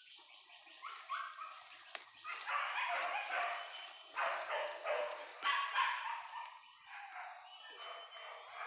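Hunting dogs barking and yelping in quick series, louder from about two seconds in.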